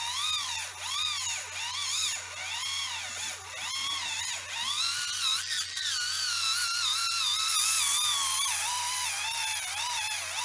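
Kemei electric callus remover's small roller motor whining as the spinning roller is pressed against and stroked along the heel. Its pitch dips and recovers about once a second as the pressure loads the motor, and it runs a little higher in the second half.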